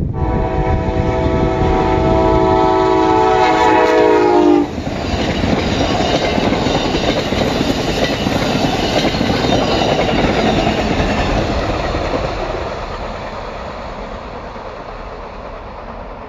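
Amtrak passenger train led by a Siemens Charger diesel locomotive passing close by. Its horn sounds one long chord that drops in pitch as the locomotive goes past, about four and a half seconds in. Then comes the rumble and clatter of the passenger cars' wheels on the rails, fading as the train moves away.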